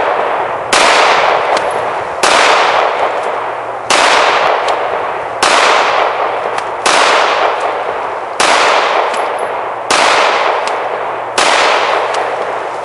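Glock 17 9mm pistol fired eight times at a slow, even pace, about one shot every second and a half, each shot followed by a long echo fading away. The pistol cycles each round without a stoppage, with the 33-round magazine now seated fully.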